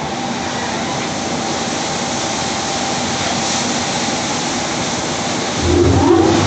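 TEPO-AUTO TP-1201-1 tunnel car wash machine running: rotating brushes and water jets spraying a car, a steady rushing noise. Near the end a low motor hum comes in and the sound gets louder.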